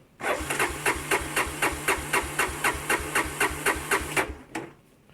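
Honda Big Red 250 three-wheeler's engine being cranked by its electric starter, turning over in an even rhythm of about four to five beats a second without firing. The cranking stops about four seconds in. It is a failed cold start: the engine won't catch.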